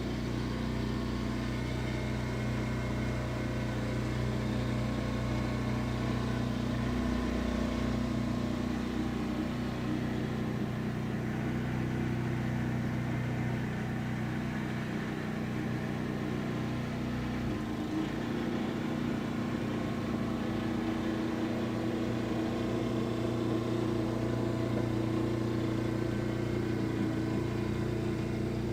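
Snow blower engine running steadily, its pitch shifting slightly about two-thirds of the way through.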